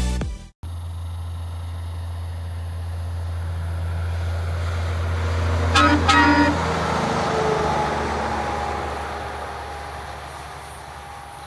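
Semi-trailer truck approaching on the highway with its engine running, giving two short horn blasts about six seconds in, then passing and fading away into the distance.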